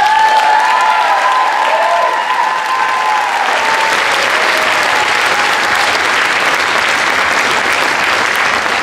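Audience applauding, with cheers ringing out over the clapping for the first few seconds.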